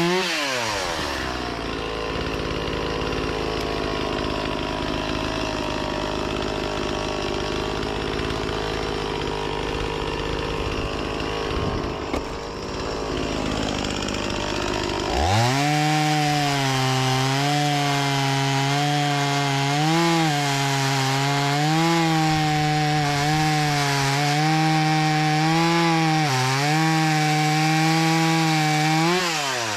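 Gasoline chainsaw engine: it drops off full throttle to a low, rough idle in the first second, then about halfway through revs back up and holds high with brief dips in pitch as it works through wood.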